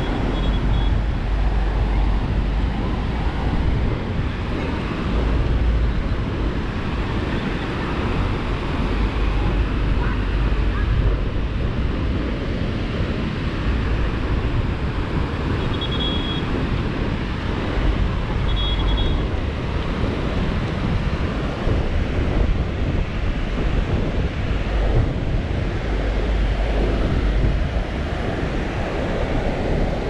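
Ocean surf breaking and washing up the beach, a steady rushing noise. Wind buffets the microphone in low rumbles every few seconds.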